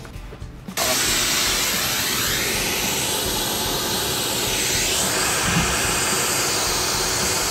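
White noise from a small portable speaker, switching on abruptly about a second in and then running steadily. Its tone shifts in slow, sweeping swirls as the speaker is slid across the wall between acoustic felt panels, a test of how much of the mid and high frequencies each panel absorbs.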